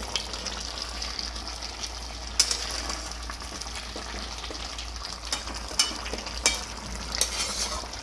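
Thick jackfruit-and-prawn curry sizzling in the pan on the heat as it is stirred, with a few sharp clinks of the spatula against the pan, the loudest about two and a half seconds in.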